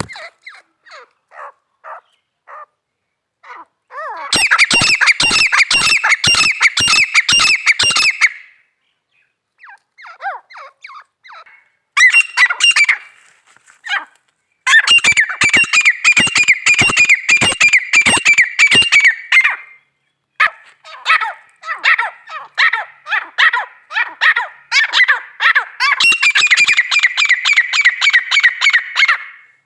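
Female grey francolin (teetar) calling: long bouts of fast, repeated shrill notes, each bout lasting several seconds, with a few scattered single notes between bouts. The bouts come four times: about four seconds in, around twelve seconds, around fifteen seconds, and from about twenty-one seconds to the end.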